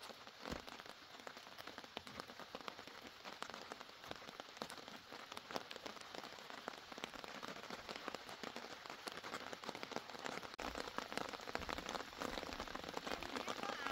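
Steady rain falling on the hillside, a fine patter of many small drops hitting soil and leaves close by. Low muffled thumps join in from about eleven seconds in.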